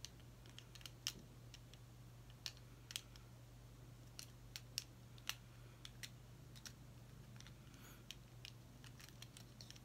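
Faint, irregular small plastic clicks and taps from an Apple AirPods charging case and earbud being handled, as an AirPod is worked back into its case, over a low steady hum.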